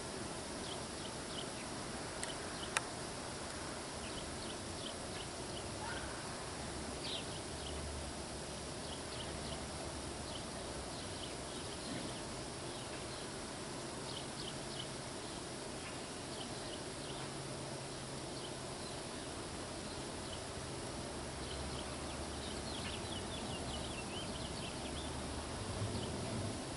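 Steady outdoor background noise with faint, scattered high ticks and short chirps throughout, and one sharp click about three seconds in.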